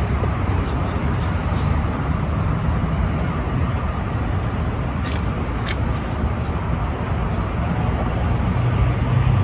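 Steady outdoor background noise with a heavy low rumble, broken by two short clicks a little over five seconds in.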